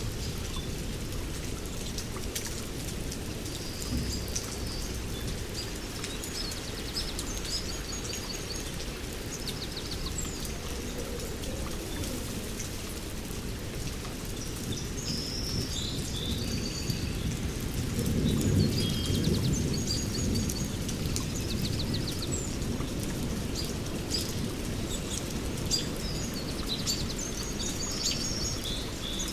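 Steady rainfall with the patter of drops, under repeated short chirps and trills of birds. About eighteen seconds in, a low rumble of distant thunder swells for a couple of seconds.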